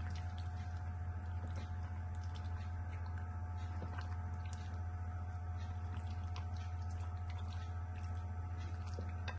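A spatula stirring mutton pieces in yogurt and spices in a glass bowl: soft wet squelches and small clicks, over a steady low hum.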